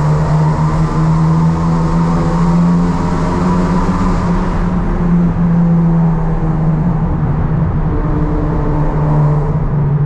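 Corsa GSI's 1.6 16-valve four-cylinder engine running at a steady cruise, heard from inside the cabin, with a hiss of road noise that thins out about halfway through.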